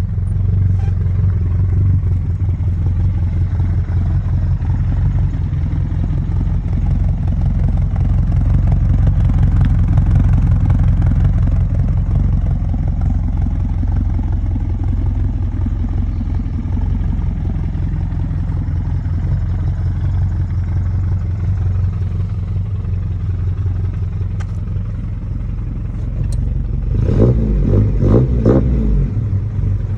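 Volkswagen Gol car engine and exhaust running steadily with a low rumble, then revved in a few short blips near the end.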